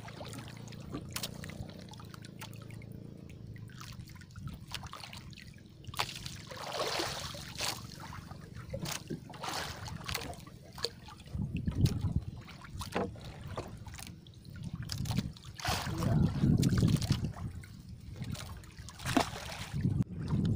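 Sea water sloshing and trickling at the side of a small outrigger boat, with scattered small knocks and clicks from handling the fishing line.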